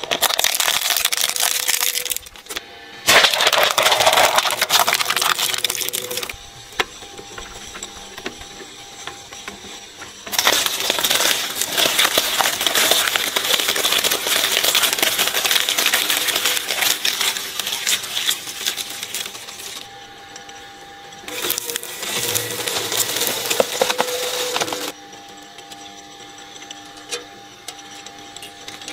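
Twin-shaft shredder's steel cutter blades crushing and tearing through objects such as a plastic mask and a watermelon, in several loud crunching spells. Between the spells the empty machine runs with a steady motor hum.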